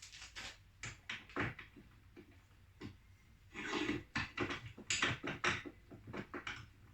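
Metal tools and shock parts being handled on a workbench: a series of short knocks and clicks, with a scraping clatter about three and a half seconds in and a quick run of knocks after it.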